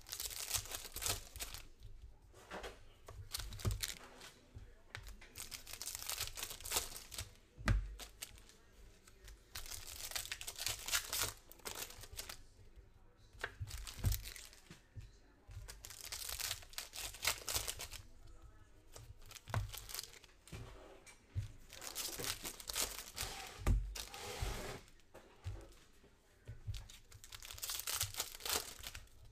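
Foil wrappers of football trading-card packs being torn open and crinkled, in repeated bursts every couple of seconds, with a few dull knocks in between.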